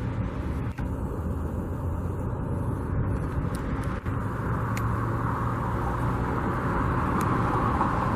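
Outdoor traffic noise: a motor vehicle going by, its engine hum and tyre noise growing louder over the second half.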